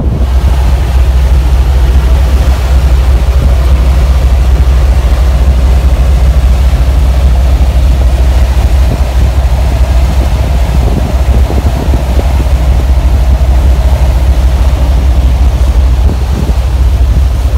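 37-foot Topaz yacht running under way: a steady, deep engine drone with wind rushing over the microphone.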